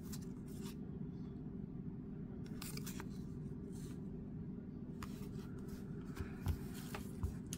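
Faint slides, flicks and soft taps of cardboard baseball trading cards being handled and dropped onto piles, over a steady low hum.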